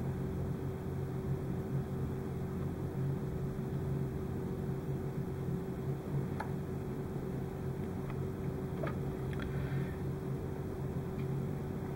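Steady low mechanical hum with a fainter steady tone above it, and a few faint light clicks from small parts being handled.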